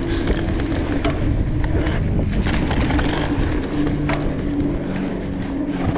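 Mountain bike riding down a dirt singletrack: continuous rumble and rush of the tyres on dirt and wind over the camera microphone, with scattered clicks and rattles from the bike over bumps and a steady low whir underneath.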